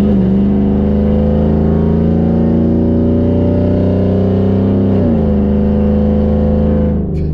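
2011 GMC Sierra's 5.3 L V8 running loud with its exhaust removed back to the Y-pipe, pulling under way with the engine note climbing slowly, then dropping at a gear change about five seconds in and holding steady.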